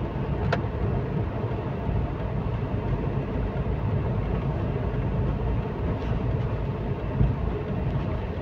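Steady road and engine noise from a car driving along a city road, with one faint click about half a second in.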